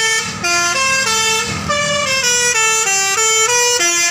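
Tour bus telolet horn, a multi-trumpet air horn, playing a melody of short stepped notes, each held a fraction of a second, over the bus's engine.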